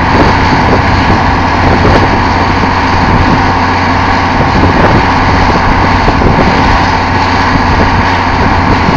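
Truck-mounted drilling rig running: a loud, steady heavy-engine drone with a constant hum.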